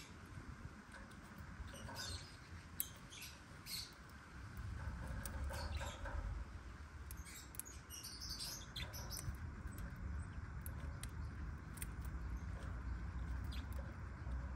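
Black-winged lovebirds giving short, high chirps and squeaks, scattered with a cluster near the middle and thinning out later. A low rumble underneath grows louder about four seconds in.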